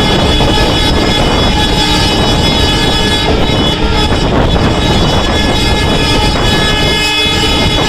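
WDM3D diesel locomotive's horn sounding in long, sustained blasts over the loud, steady rumble of the running train. The horn pauses briefly near the end and then sounds again.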